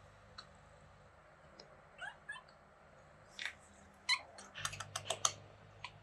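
Kitten making short, high chirping 'beeping' calls: a few rising chirps about two seconds in, then a quick run of them about four to five seconds in.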